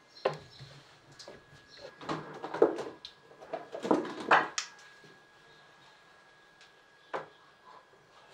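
Paint tubes clicking and rattling against each other as they are rummaged through in a wooden drawer, in several short flurries that are loudest in the middle. A single sharp click comes near the end as a tube is handled.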